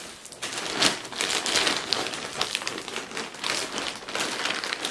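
Packaging crinkling and rustling as it is handled, with many short, sharp crackles.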